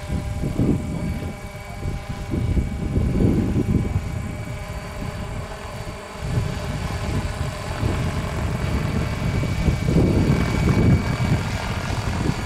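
Electric MD500-scale RC model helicopter flying with a heavy cross slung beneath it: a steady high whine from the motor and drive, with several tones, over an uneven low rumble from the rotors that swells and fades.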